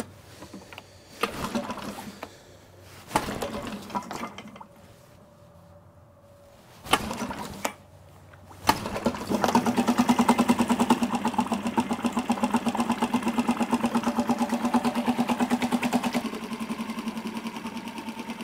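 Mercury 3.5 hp single-cylinder four-stroke outboard (Tohatsu-built) pulled on its starter cord a couple of times, catching about nine seconds in and running with a fast, even single-cylinder beat, a little quieter near the end. It is running on the fuel left in the carburettor with the fuel valve shut off, so that the carb is run dry for storage.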